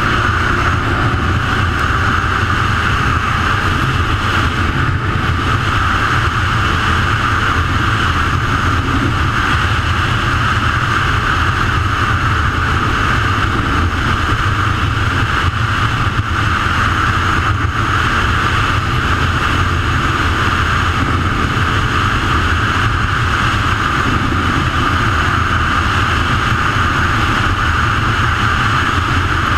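Quad bike (ATV) running steadily at road cruising speed, its engine drone mixed with a constant rush of wind and road noise.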